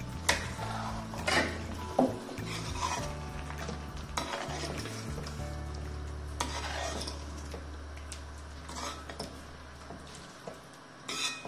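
Water poured into a steel kadai of chickpea curry at the start, then a metal spatula stirring and scraping through the thick gravy against the pan, with the curry sizzling on the heat.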